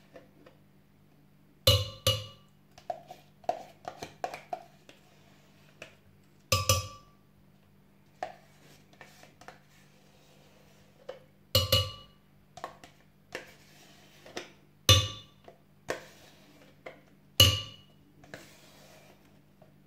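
Metal spoon knocking yogurt off against a glass blender jar: about five sharp, ringing clinks a few seconds apart, with softer taps and scrapes of the spoon in the yogurt tub between them.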